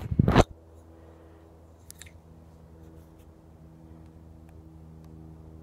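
Handling noise right at the start: a loud, half-second scraping rustle as the welding lens is moved off the phone. Then a faint steady low hum, with a couple of small clicks about two seconds in.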